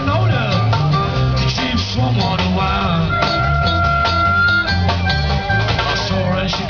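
Live band playing an instrumental passage on acoustic and electric guitars, bass and a drum kit; one high note is held steadily for about a second and a half in the middle.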